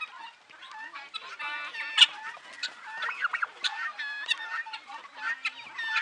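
A flock of domestic guineafowl calling: many short, rapidly repeated calls from several birds overlapping, with one louder call about two seconds in.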